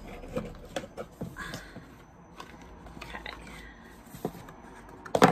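Cardboard packaging being opened and handled: scattered rustles, scrapes and light taps, with a sharp knock near the end.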